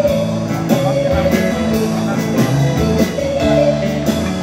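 Live band music: a drummer keeping a steady beat on a drum kit, with regular cymbal strokes, under sustained pitched instrument notes.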